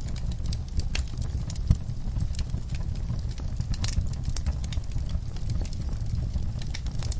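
Fire in an outdoor firepit crackling: irregular sharp pops and snaps over a steady low rumble.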